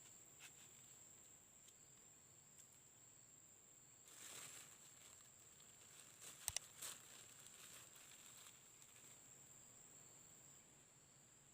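Near silence outdoors with a faint, steady, high insect drone, broken by a soft rustle about four seconds in and a few quick clicks about six and a half seconds in.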